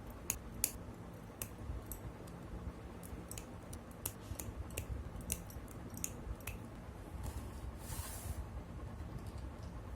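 Gunpla plastic kit parts being cut and handled: irregular, sharp small plastic clicks and snips over a low steady hum, with a brief rustle about eight seconds in.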